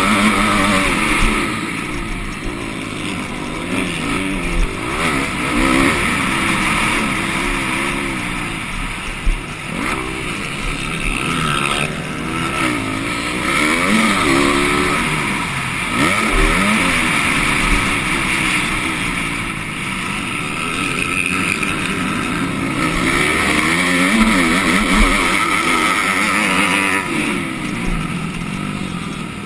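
MX2 motocross bike engine on a dirt track, revving hard and dropping off again and again as the rider accelerates, shifts and brakes through the corners, with wind rushing over the helmet camera. Near the end a second dirt bike runs close alongside.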